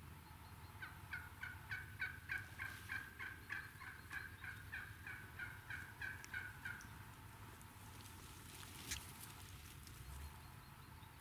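Turkey calling: an even run of about twenty short notes, some three a second, lasting about six seconds. A single sharp click follows a couple of seconds later.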